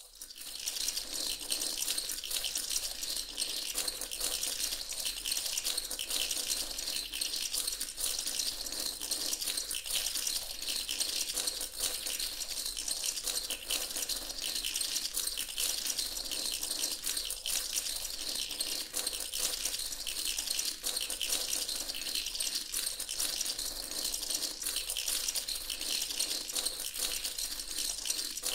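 Continuous dense rattling, like many small hard pieces clattering together, steady in loudness throughout and mostly high and hissy, with a faint low hum underneath.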